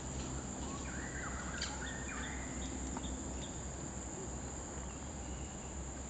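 Steady high-pitched insect drone, with a bird giving a few short calls between about one and two and a half seconds in.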